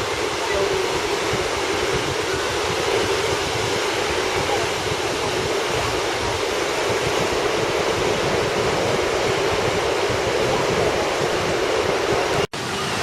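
Steady rushing noise of the sea, even throughout, cut off for an instant near the end.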